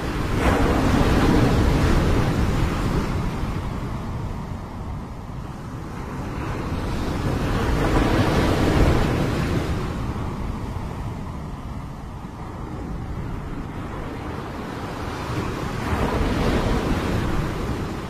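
Small sea waves breaking and washing up a pebble beach: three surges, each swelling and fading, about seven seconds apart.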